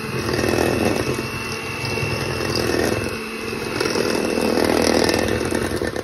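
Electric hand mixer running, its beaters churning through dry, crumbly peanut butter cookie dough in a stainless steel bowl. The motor's level rises and dips as the beaters work, and it stops right at the end.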